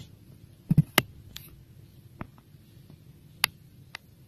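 A few short, sharp clicks and taps: a close pair and a louder one about a second in, then scattered single clicks.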